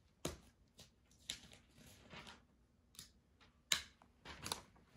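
Faint paper handling: a handful of short, scattered rustles and light taps as sheets are shuffled to pull up a page.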